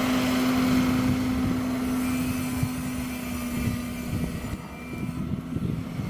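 John Deere 6210R tractor's six-cylinder diesel engine running steadily under load while pulling a six-furrow plough. Its engine note fades about four seconds in as the tractor moves away.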